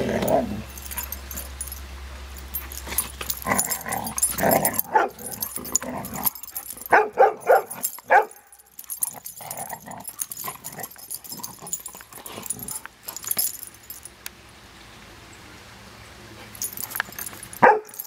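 Two dogs play-wrestling and giving short barks and yips. The calls come in scattered bursts, loudest about seven seconds in and again just before the end, with a quieter lull a few seconds before that.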